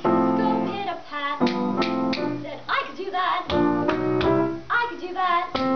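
A solo voice singing with vibrato, accompanied by a grand piano playing chords under it.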